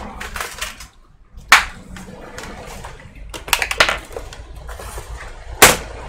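Knocks and clatter of a computer keyboard being handled and set down on a workbench: a few sharp knocks, the loudest about a second and a half in and just before the end, with a quick run of clicks in the middle.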